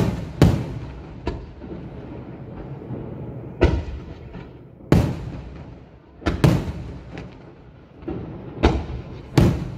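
Aerial firework shells bursting overhead: about nine loud booms at uneven intervals, each with a rolling echo.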